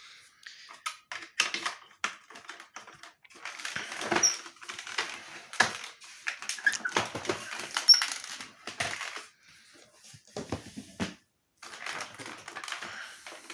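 Handling noise from a vintage Soviet Raketa vacuum cleaner as it is picked up and moved about: irregular knocks, clicks and rattles of its casing and parts, with a short lull near the end.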